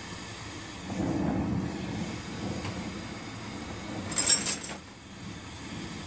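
Glassblowing bench torch flame running with a steady rushing rumble as tubing is heated in it, swelling a little about a second in. Just after four seconds there is a brief bright clink.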